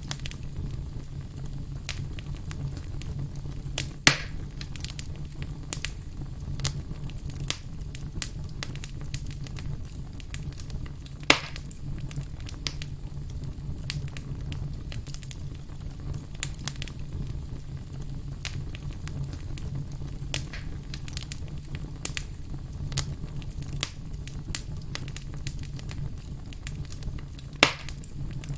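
Firewood burning, with a steady low roar from the flames and frequent small crackles and snaps. Three loud sharp pops stand out: about 4 seconds in, about 11 seconds in, and near the end.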